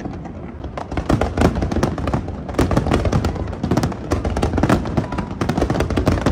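Fireworks display: a dense, rapid barrage of aerial shell bursts, bangs and pops following one another without pause.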